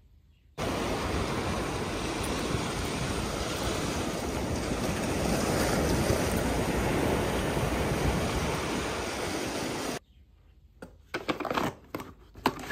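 Sea waves breaking along a rocky shore, a steady rushing noise with wind on the microphone, that starts suddenly about half a second in and cuts off about ten seconds in. A few light knocks follow near the end.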